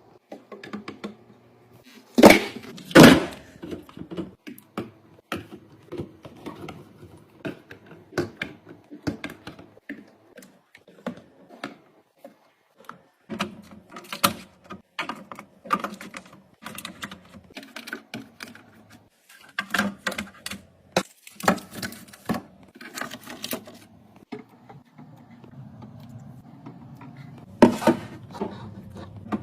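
Objects being handled and set down, giving irregular clicks, taps and knocks, with two loud knocks about two and three seconds in and another near the end.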